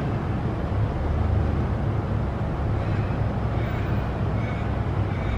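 Steady low rumble of busy road traffic.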